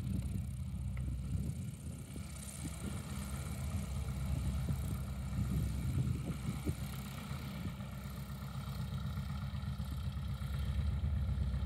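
Zenair CH-300 light aircraft's piston engine and propeller running at taxi power as the plane rolls past and away, heard as a low, uneven drone.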